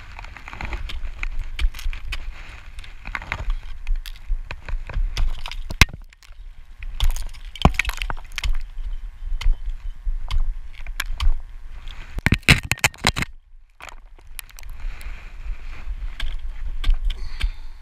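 Ice axe picks and crampon points repeatedly striking and chipping into water ice during a steep ice climb: a run of sharp, irregular impacts with a thick flurry of strikes about three-quarters of the way through, over a steady low rumble.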